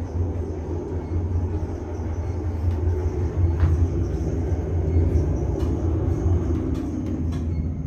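Otis Elevonic 401 traction elevator's glass cab travelling through the shaft: a steady low rumble of the moving car, with a few faint clicks.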